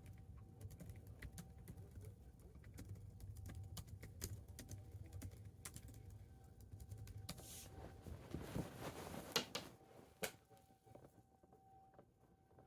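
Irregular quick clicks and taps of typing on a keyboard, with a faint steady high tone behind them. About eight seconds in, a louder rustle ends in one sharp knock.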